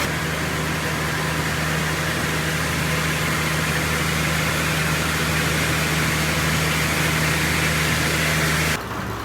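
Sawmill machinery running steadily: a low, even engine hum under a wide hiss. It cuts off abruptly near the end.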